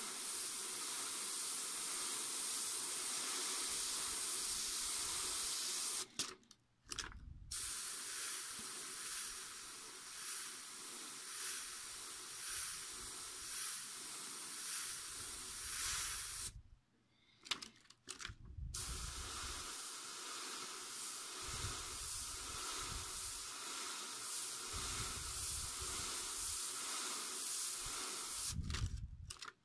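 Dual-action airbrush spraying paint, a steady hiss of compressed air that stops briefly twice as the trigger is let off, and again at the very end.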